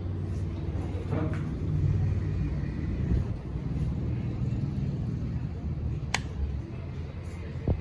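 Commercial Ventex ceiling fan running, a steady low rumble of air moving, with a sharp click about six seconds in.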